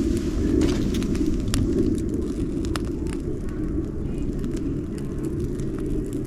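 Campfire burning: wood crackling with scattered sharp pops over a steady low rumble.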